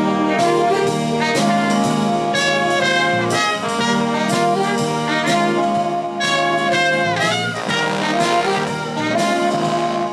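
Community band of trombones, saxophones and trumpets playing a tune together, with a couple of notes bent downward along the way.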